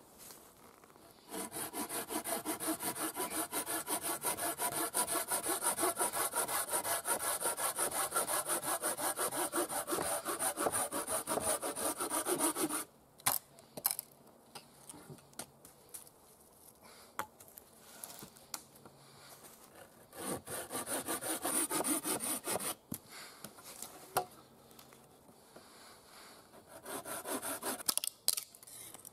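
Folding hand saw cutting through a wooden pole in quick, regular back-and-forth strokes: a long run of sawing of about eleven seconds, then a few scattered knocks, then two shorter runs of sawing.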